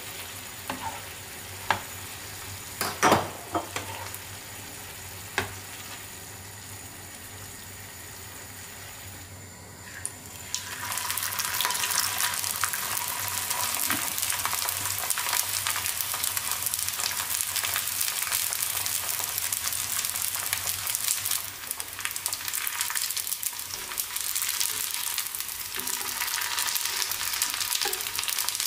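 Wooden spatula stirring diced chicken simmering in sauce in a nonstick frying pan, with a few sharp knocks against the pan in the first few seconds. About ten seconds in, it gives way to wontons shallow-frying in hot oil: a louder, steady sizzle and crackle.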